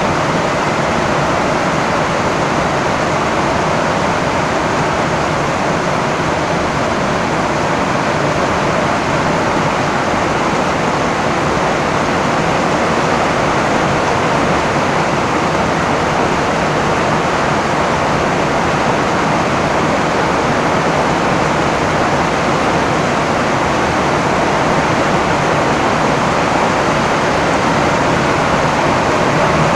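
Rain falling on a tin roof: a steady, even hiss that holds without a break.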